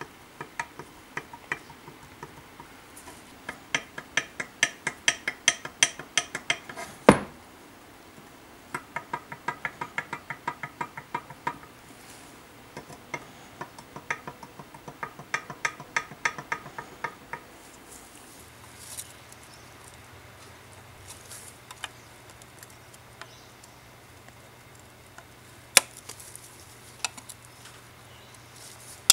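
Quick runs of light metallic clicks, about four a second, with a slight ring: a steel rule in a combination square tapping against the aluminum flange of a Saab 900S intake plenum as it is checked for warpage. One louder knock comes about seven seconds in, then scattered single clicks.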